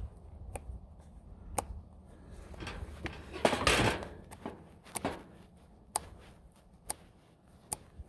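Sharp clicks and, about three and a half seconds in, a louder brief scrape: a chainsaw's chain and bar being handled by hand while its tension is checked and adjusted.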